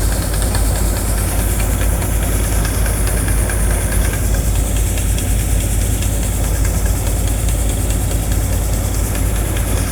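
A harvesting machine's engine running steadily, with a constant low rumble.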